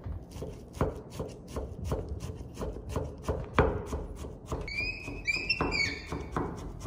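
Knife chopping on a wooden cutting board, with steady strokes about two to three a second. A few short, high-pitched squeaks come in a little past the middle.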